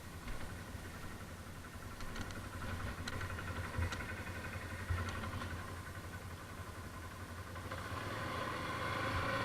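ATV engine running steadily, with a few sharp clicks in the middle, then growing louder over the last couple of seconds.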